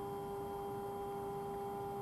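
Axiom CNC router's Z-axis stepper motor driving the spindle slowly down toward a touch-off plate to set the zero point, a steady whine of several fixed tones over a low hum.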